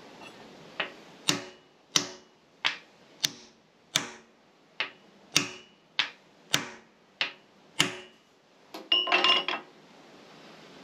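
About a dozen steady hammer blows, a bit under two a second, on the rusted-in shaft and pinion of a Victorian radial drill's cast-iron head. Each blow rings briefly, and the part stays seized. Near the end comes a short ringing metallic clatter.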